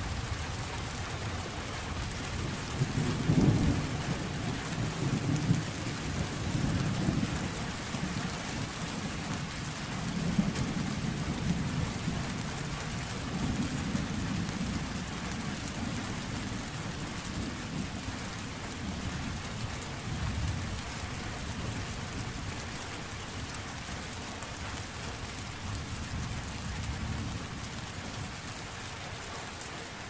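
Steady rain falling with low rolling thunder rumbling through it. The thunder is loudest a few seconds in and again around the middle, then dies away toward the end.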